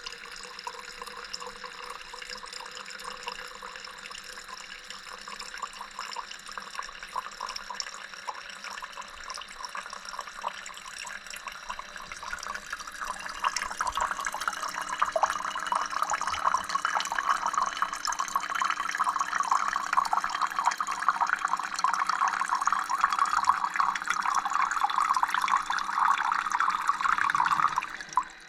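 Gevi pour-over coffee machine pumping water into the carafe: a steady stream splashing into the carafe that grows louder about halfway through, then stops suddenly near the end as the reservoir runs out of water.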